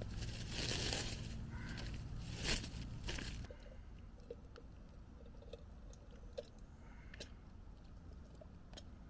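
Crinkly packaging handled and crumpled with loud crackling for about three and a half seconds, then faint scattered clicks and taps.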